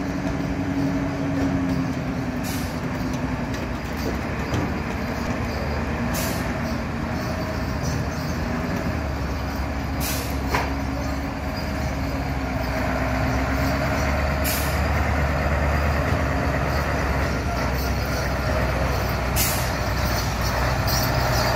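1988 Mercedes-Benz 2635 truck's diesel engine running at low speed as the truck rolls up and stands, the low engine sound growing heavier about halfway through. A short sharp hiss of air cuts in about every four to five seconds, typical of the truck's air brakes.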